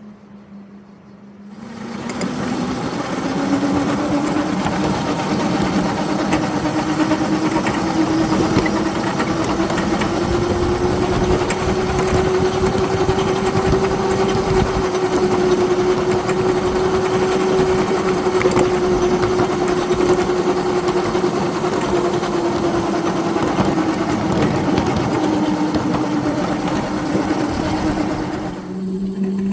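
Motor of a 7½-inch gauge ride-on backyard locomotive running along the track. Its drone starts about two seconds in, rises in pitch as the train gathers speed, holds steady, then drops a little near the end, over a continuous rattle.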